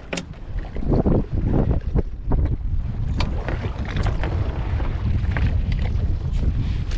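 Wind rumbling on the microphone over sea water lapping at a small boat, with scattered short knocks and splashes as a drop line of fish is hauled in over the gunwale.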